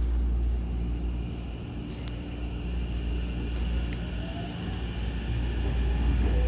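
Hankyu train running between stations, heard inside the carriage: a steady low rumble of running gear with faint steady tones, and a faint rising motor whine near the end.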